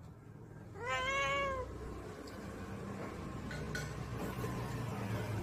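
A domestic cat gives one drawn-out meow about a second in, rising then falling in pitch. A low steady rumble follows.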